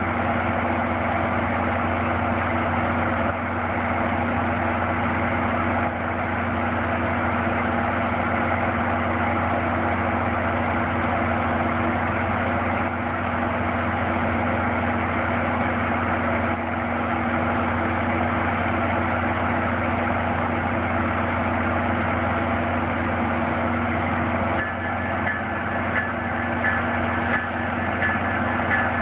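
FrontRunner diesel locomotive idling steadily at a standstill, with a constant low hum. Near the end a thin, steady high-pitched tone starts up over it.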